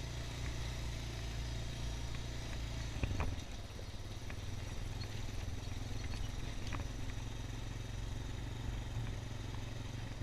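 ATV engine running at low speed with a steady low hum; the engine note drops and changes about three seconds in, with a few light clicks and knocks.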